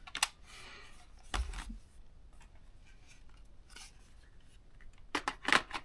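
Hard plastic clicks and a knock as a ThinkPad T430 laptop is handled, then a quick run of clicks and scrapes near the end as its battery is slid into place.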